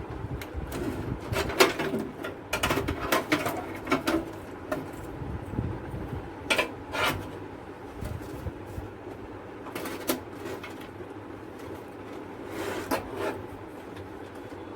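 Irregular clicks, taps and light knocks of computer parts and cables being handled and fitted inside a PC cabinet, in uneven clusters with short pauses between.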